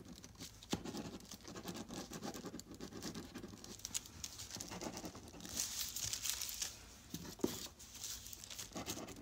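Ballpoint pen scratching quickly across thin painted collage paper in handwriting strokes, with the sheet crinkling under the hand and a couple of light taps.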